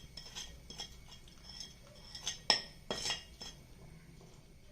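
Metal spoon clinking and knocking against a metal cooking pot: a handful of scattered knocks with short ringing, the loudest about two and a half seconds in.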